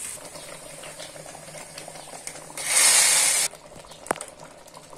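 Hot mustard oil and fried garlic poured into cooked lentil dal as a tempering (baghar): a loud sizzle about two and a half seconds in, lasting about a second and cutting off sharply. Before it, the garlic crackles faintly in the oil; a single sharp click follows.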